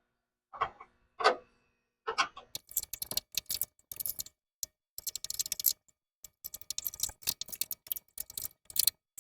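Wrench clicking and clinking against the nuts in quick runs of small metallic ticks as the upper air bag bracket bolts get their final tightening.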